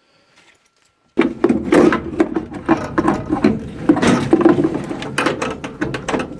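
Sheet-metal furnace burner assembly being handled, with loud, irregular metallic clattering and rattling that starts suddenly about a second in.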